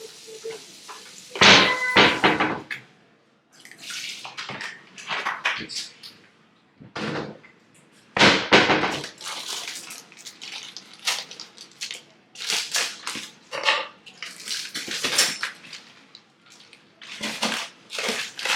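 Water running and splashing in a kitchen sink in irregular bursts as raw goat meat is washed, with a couple of knocks of a dish about a second and a half in.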